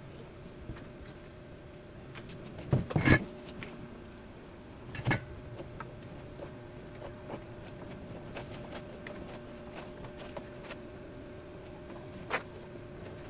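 Wooden knocks and bumps from a plywood panel being handled: a cluster of sharp knocks about three seconds in, a single knock at about five seconds and another near the end, with scattered light clicks between, over a steady faint hum.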